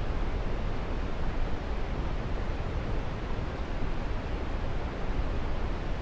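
Waterfall: a steady, even rush of falling water with a heavy low rumble.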